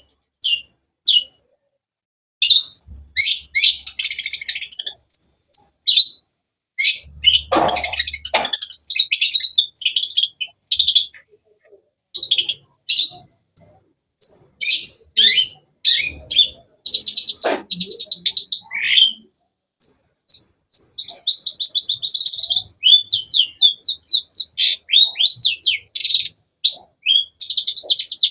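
Long-tailed shrike (cendet) singing a fast, varied stream of sharp, high chirps and short whistled notes, with rapid trills about three quarters of the way through and again near the end.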